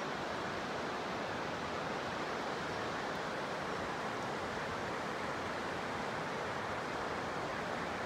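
A shallow, rocky stream running over stones and small rapids: a steady, unbroken rush of water.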